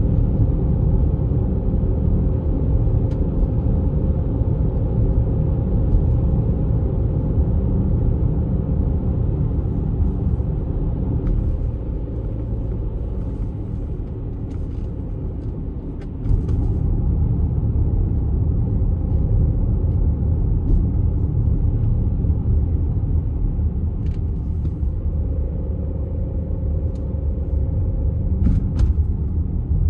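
Diesel car on the move: a steady, loud low road-and-engine rumble. It eases off about twelve seconds in and comes back abruptly about four seconds later.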